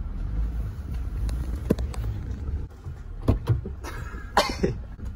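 Car engine idling, heard from inside the cabin as a steady low rumble that drops off about two and a half seconds in. After that come sharp clicks and knocks from the passenger door as someone outside works the handle and opens it.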